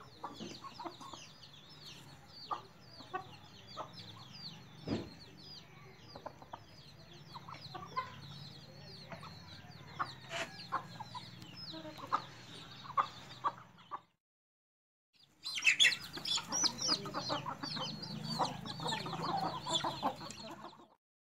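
Backyard flock of desi chickens clucking, with chicks peeping nonstop in short, high, falling chirps. The sound drops out for about a second just after the middle, then comes back louder and busier.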